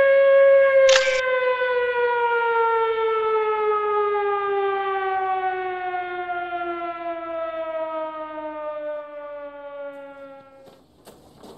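Air raid siren winding down: one steady wail that starts sliding slowly lower in pitch about a second in and dies away after about ten seconds. A single sharp click sounds about a second in.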